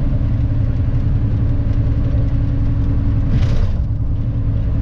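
Volvo semi truck heard from inside its cab while driving: a steady low engine and road rumble, with a short hiss about three and a half seconds in.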